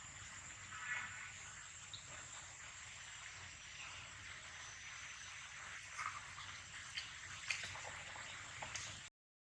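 Faint steady outdoor background hiss with a high steady tone throughout. A short chirp comes about a second in, and a few faint clicks and taps follow in the second half. The sound cuts out just before the end.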